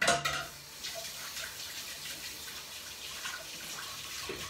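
Kitchen faucet running into the sink as hands are rinsed under it. The flow starts suddenly, runs as a steady rush, and stops near the end.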